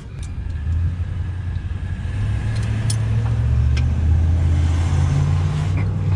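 Low, steady vehicle-engine rumble that grows louder about a second in and holds, with a few light metallic clicks over it.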